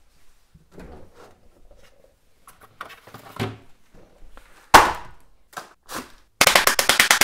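A plastic ready-meal tray is handled and set down on a table with a sharp knock, followed by two lighter knocks. Near the end a loud, fast, even rattle of clicks starts, about a dozen a second.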